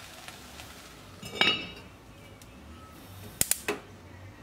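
Heavy enamelled cast-iron lid set down onto its pot: a clank with a short ringing tail about a second and a half in, then a few sharp clicks near the end.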